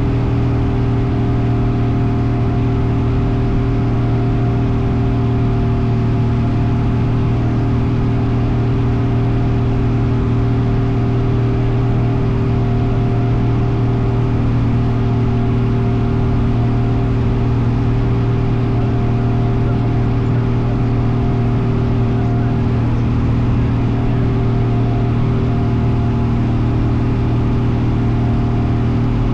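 Cessna light aircraft's piston engine and propeller running at a steady, unchanging pitch: a continuous deep drone.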